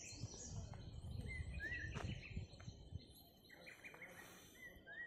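Faint wild birds calling: scattered short chirps and high whistles over a low rumble.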